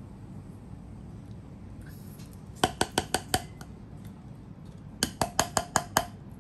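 Two quick runs of sharp, ringing clinks, like glass or metal being tapped: five strikes about two and a half seconds in, then six more about five seconds in, roughly six a second.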